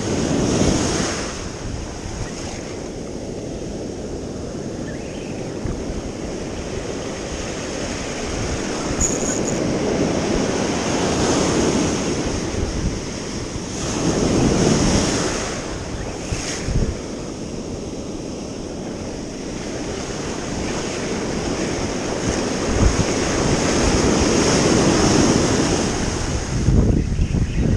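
Ocean surf breaking and washing over rocks, swelling and fading every several seconds, with wind on the microphone. A run of knocks and bumps near the end.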